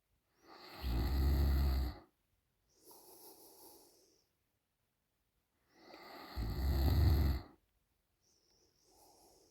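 A woman snoring open-mouthed in her sleep: two loud snores with a low flutter, about five seconds apart, each followed by a softer breath out.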